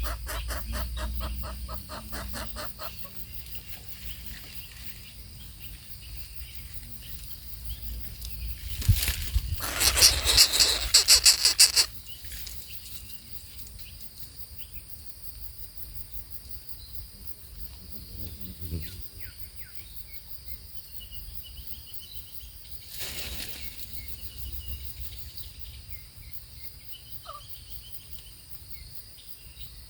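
Rural outdoor ambience with a steady faint high hiss. A bird's wings flap rapidly for about three seconds near the middle, the loudest sound. A few fainter bird and fowl sounds come before and after.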